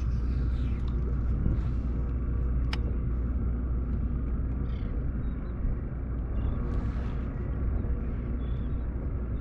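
A steady low rumble with a faint hiss above it and a few faint clicks.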